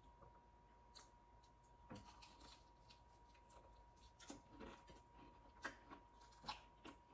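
Faint close-up chewing of fried, cheddar-biscuit-battered butterfly shrimp: a bite, then soft crunches and mouth clicks coming a few times a second, more of them in the second half.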